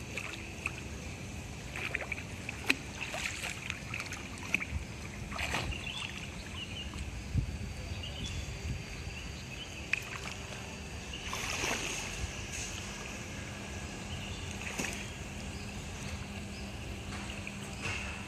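Swimming-pool water sloshing and lapping, with scattered small splashes and a faint steady hum underneath.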